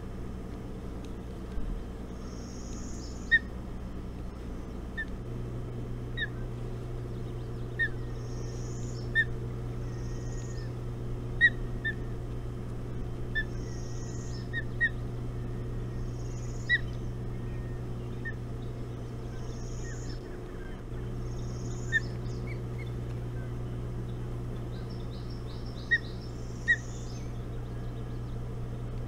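Wild birds calling repeatedly at the shore: short sharp chips and thin high notes, one every second or two. Under them runs a steady low hum that starts about five seconds in and breaks off briefly near twenty seconds.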